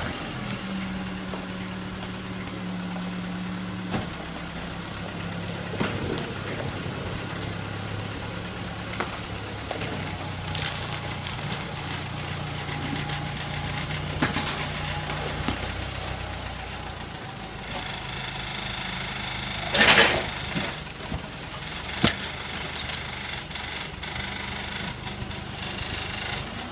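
JCB 3CX backhoe loader's four-cylinder diesel engine running under work, its note shifting as the loader lifts its front bucket and moves, with scattered metallic knocks. About two-thirds of the way in comes a loud rattling crash, the loudest sound, as debris is tipped from the bucket into a skip.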